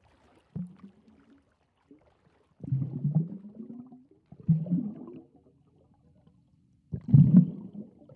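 Muffled underwater bubbling and gurgling, heard as if from below the surface. It comes in several low surges, and the loudest is near the end.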